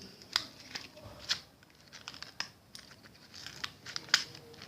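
A gift's wrapping being torn open and crinkled by hand: irregular rips and sharp crackles, the loudest one about four seconds in.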